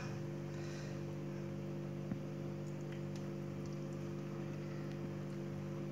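A steady electrical hum, with one faint tick about two seconds in.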